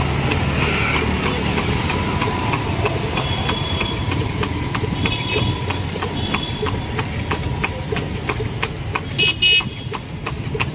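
A horse's hooves clip-clopping in an even trot on asphalt as it pulls a tanga, over the steady drone of city traffic engines. Vehicle horns toot briefly several times, loudest near the end.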